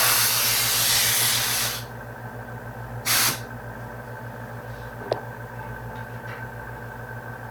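Pressurised spray hissing in two blasts: a long one of about two seconds at the start and a short one about three seconds in, over a steady low hum.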